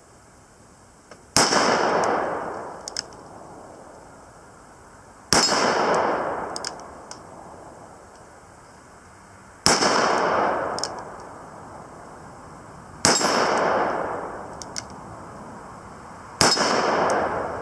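Smith & Wesson 629 revolver firing 240-grain .44 Magnum rounds: five single shots about three to four seconds apart, each followed by a long echoing decay.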